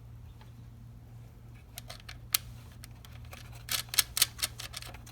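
A run of small sharp clicks and taps of hand tools and small parts being handled, starting about two seconds in, over a low steady hum.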